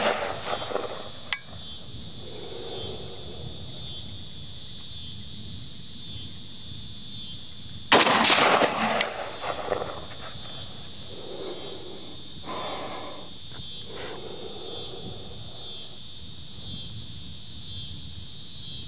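A single rifle shot from an AR-15-style 5.56 rifle about eight seconds in, ringing out briefly afterwards, over a steady high buzzing of insects.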